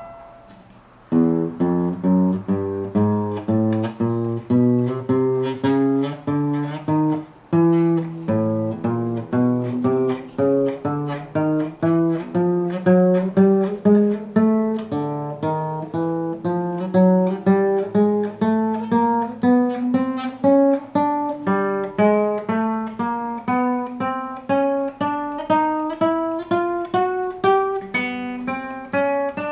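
Acoustic guitar playing single plucked notes one after another, about two or three a second, climbing in pitch fret by fret up the neck. After a brief break about seven seconds in, the run starts again lower and climbs on.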